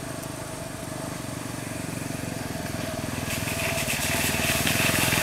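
Single-cylinder dual-sport motorcycle engine running, getting steadily louder over a few seconds.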